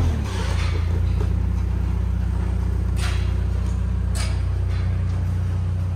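A compact articulated wheel loader's engine drops back from a higher speed just at the start and runs steadily at idle. Two brief clicks come about three and four seconds in.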